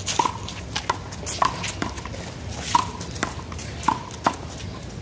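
A one-wall handball rally: the rubber ball slapped by hands and smacking off the wall and pavement, a sharp smack about every half second, about eight in all, several with a short ringing ping.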